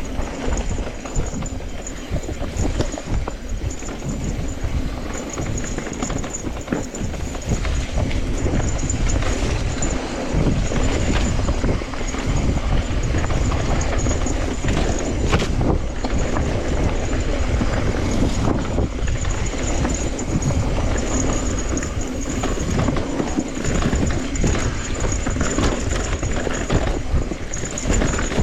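Electric mountain bike riding over a rough trail: an irregular, continuous clatter of knocks and rattles from the bike over a low rumble.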